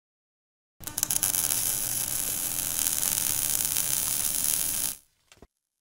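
Logo-intro sound effect: a steady hiss with a faint low hum underneath. It starts suddenly about a second in and cuts off abruptly about five seconds in.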